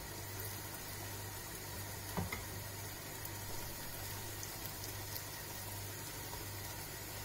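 Breaded cod fillets frying in shallow hot oil in a non-stick pan: a faint, steady sizzle, with a short tap about two seconds in as a piece goes into the pan, over a low constant hum.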